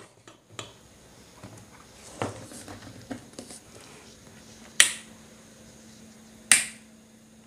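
Light plastic knocks and scrapes as an LED bulb is screwed into its lamp holder, then a switchboard switch clicking sharply a few times, about a second or two apart, as the repaired bulb is switched on and off, over a faint steady hum.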